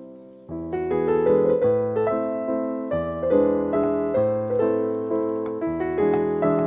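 Background piano music: a soft passage fades, then fuller chords and melody come in about half a second in, the notes struck and dying away one after another.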